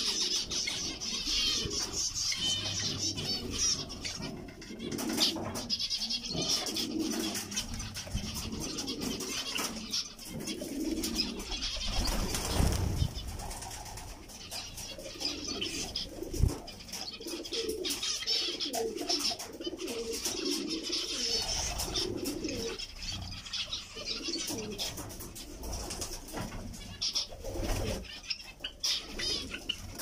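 Aviary birds calling: many short, high zebra finch chirps over repeated, wavering low cooing from a dove.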